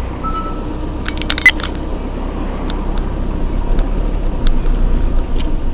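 Steady low rumble of a car driving on a road, picked up by a dashboard camera inside the cabin. A brief cluster of sharp clicks and a crack come about a second and a half in, with a few single ticks after.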